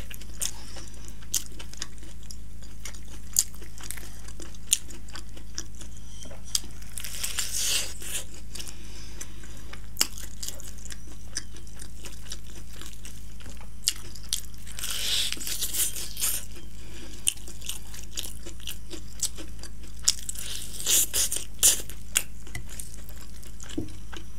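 Close-miked chewing of crispy fried chicken: sharp crunches now and then and a few bursts of crackly chewing, over a steady low hum.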